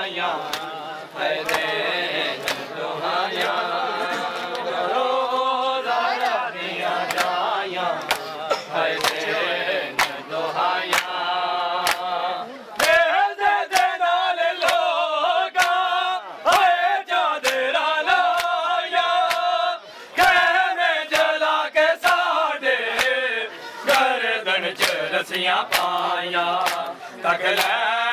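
Men's voices chanting a noha (mourning lament) in unison, with sharp hand slaps on bare chests (matam) keeping a steady beat of roughly two a second.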